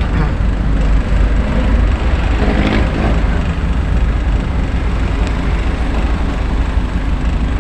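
A truck's engine and road noise while driving: a steady low rumble, with a brief pitched sound about three seconds in.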